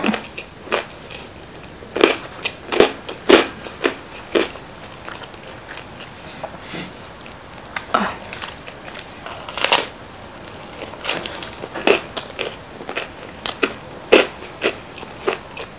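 Close-miked chewing of crisp Chicago deep-dish pizza crust, with sharp crunches scattered irregularly throughout as it is bitten and torn.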